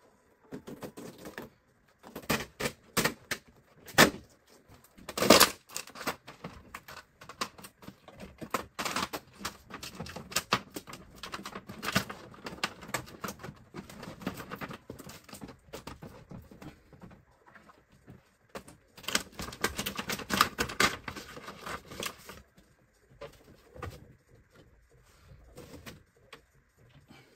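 Thin plastic optical film sheets and the diffuser plate of an LED TV panel being lifted off and handled by hand: irregular crackling, clicks and clatter of the stiff plastic. There are several sharp knocks in the first few seconds and a denser stretch of rattling near the end.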